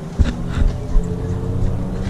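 Background music with a steady beat and sustained held notes.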